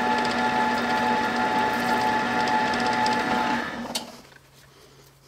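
Drill press running with a 1/2 inch Forstner bit boring a shallow hole into an ABS plastic vise jaw, a steady hum with several held tones. It stops about four seconds in with a click, leaving a faint low hum.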